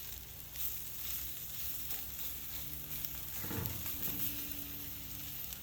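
Bone-in ribeye searing directly on hot lump charcoal, sizzling steadily with faint scattered crackles.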